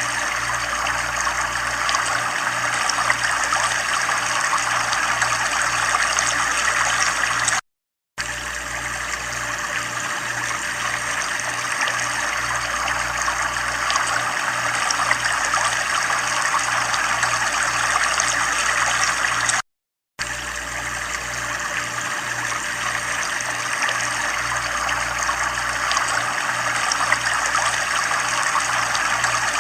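Running water flowing and trickling steadily, with a faint low pulsing hum underneath. The sound cuts out completely for about half a second twice.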